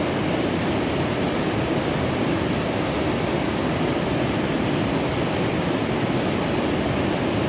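Steady rushing of a waterfall, even and unbroken.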